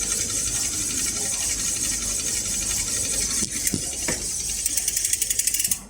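The mechanism of a new TRS Rocher running with a steady buzzing rattle that turns into rapid even clicks, about twelve a second, near the end, then stops abruptly. This is the weird sound of a new unit that is tight to cycle.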